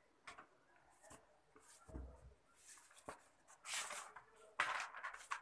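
Faint rustling handling noises in a small room, with two louder brushing rustles near the end.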